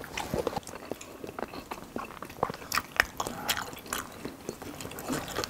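Close-miked eating: people chewing and biting into tteokbokki, rabokki noodles and fried snacks, with many irregular wet smacks and sharp little clicks.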